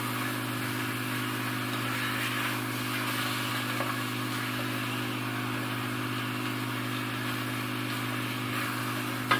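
Chicken pieces sizzling steadily as they brown in oil in an aluminium pot, over a steady low hum.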